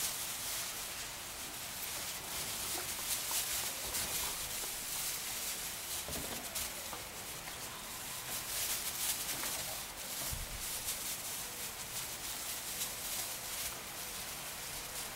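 Lambs running and skipping over straw bedding: a steady crackly rustle of straw underfoot, with a faint lamb bleat about six seconds in.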